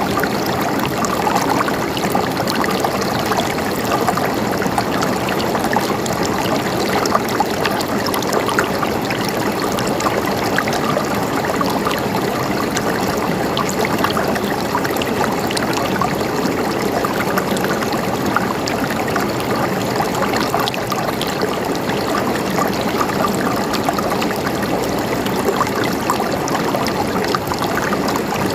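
River water flowing steadily, a continuous babble with many small splashes and droplets.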